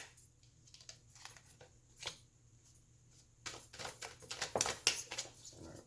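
Tarot cards being handled and laid on a table: short papery rustles and light slaps, once about two seconds in and a busier run of them from about three and a half to five seconds in.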